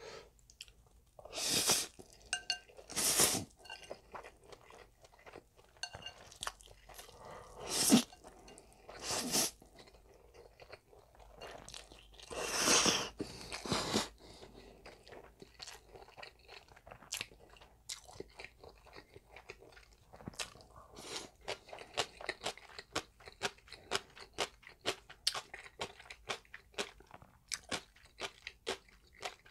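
Close-miked eating of spicy cold mixed noodles (bibim-guksu): several long slurps in the first half, then steady wet chewing with rapid short mouth clicks.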